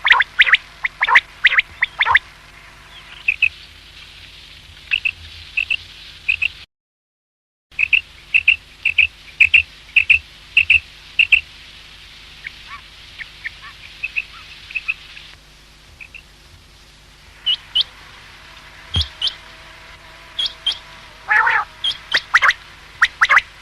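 Common quail calling: short, sharp notes repeated in quick groups. A brief total dropout about seven seconds in.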